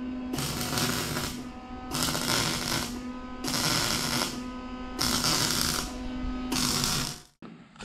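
Background music: steady held notes under a repeating pattern of bright, cymbal-like hits about every one and a half seconds, which cuts off abruptly near the end.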